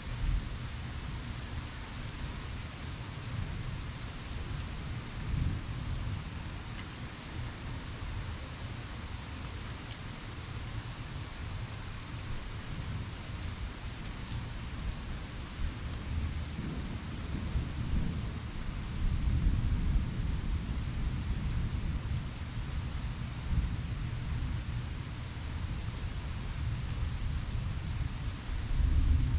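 Steady rain, an even hiss, with a low rumble that swells and fades, loudest in the second half, and a faint, evenly spaced high pulsing.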